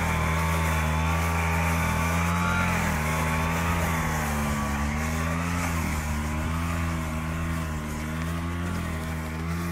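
Agria 4000 walk-behind tractor's engine running steadily, its pitch wavering slightly, while the front-mounted rotary sweeper brush sweeps the paving.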